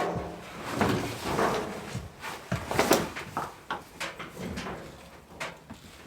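Irregular scraping, rubbing and knocking as a tight replacement dryer belt is worked by hand onto the motor pulley. The sounds are busiest in the first three seconds and thin out after that.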